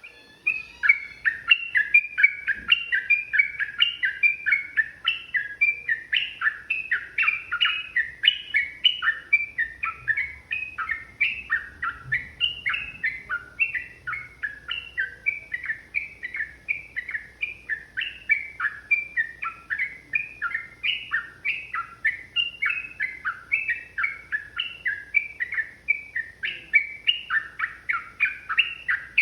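Yellow-vented bulbul (trucukan) singing a long, unbroken run of rapid, bubbly chirping phrases, about three notes a second, starting abruptly.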